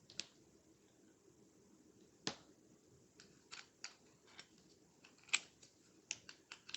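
Light metallic clicks and taps as small rifle parts are handled: trigger-group pins set down and the AR lower receiver's parts moved, about a dozen separate clicks, more closely spaced near the end.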